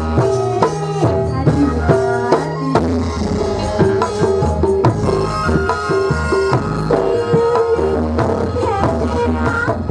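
Javanese gamelan playing a lively piece: many struck metal keys ringing in quick succession over steady drumming.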